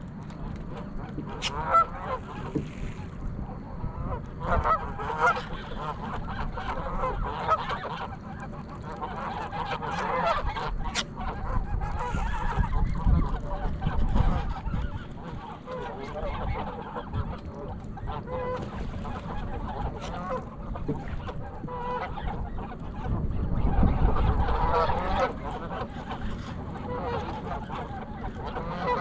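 A flock of Canada geese honking on and off, the calls overlapping. A low rumble swells twice, around the middle and again near the end.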